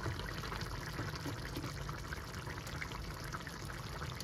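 Crab curry bubbling at a simmer in a pan, a steady liquid bubbling with faint small pops.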